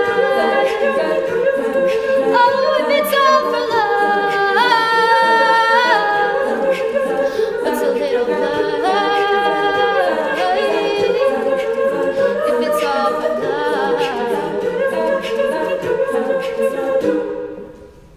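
Women's a cappella group singing held chords, with a solo voice moving above them. The sound dies away shortly before the end.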